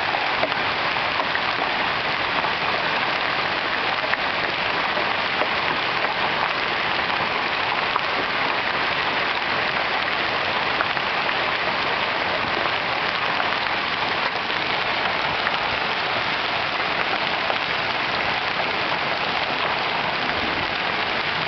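Hailstorm: hail and rain falling hard on the lawn, street and cars, making a steady, dense hiss of many small impacts.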